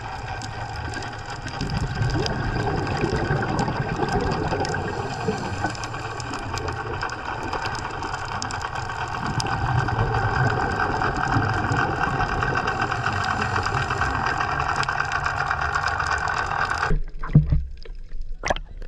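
Underwater recording of a boat's engine and propeller drone carried through the water: a steady hum of several tones over a rough, churning low rumble. It cuts off abruptly near the end, followed by a couple of short thumps.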